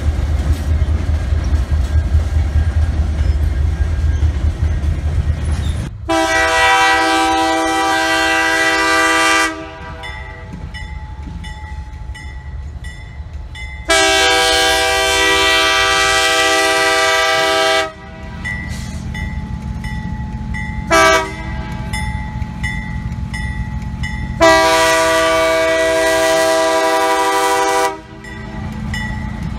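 Diesel locomotive's multi-chime air horn sounding the grade-crossing signal: two long blasts, a short one and a final long one. A low engine and rail rumble runs under it, heavier before the first blast.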